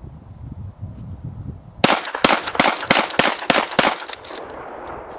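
A 12-gauge Remington 870 Tactical pump-action shotgun fired rapidly about two seconds in, a fast string of about seven shots in roughly two seconds, emptying the magazine, followed by a rolling echo that fades out.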